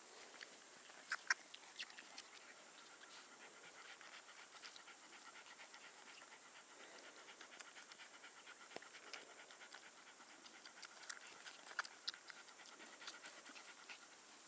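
Faint panting of a terrier playing with puppies, with soft scuffling and scattered small clicks; one sharper click about a second in.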